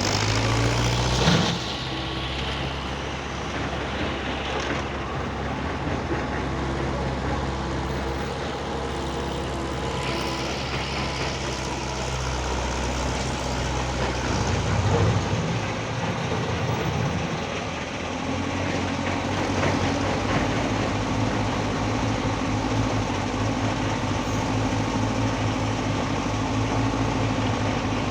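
Heavy diesel engines of a Hitachi excavator loading a dump truck, running steadily under work. The engine note shifts about a second in, around the middle, and again about two-thirds through.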